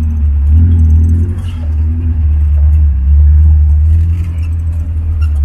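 Off-road jeep engine running under way, a steady deep rumble that swells and eases, with light rattling on top.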